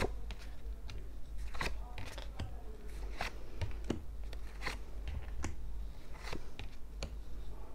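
Tarot cards being drawn from a deck and laid down one by one: an irregular run of about a dozen crisp snaps and flicks of card stock.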